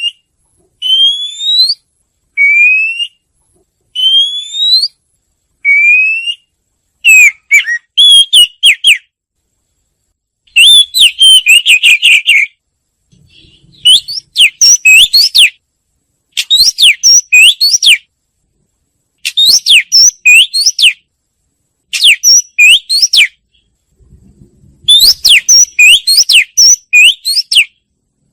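Wagtail song. It opens with about five rising whistled notes spaced about a second and a half apart, then turns into bursts of rapid, sharp chirping notes lasting a second or two each, with short pauses between them.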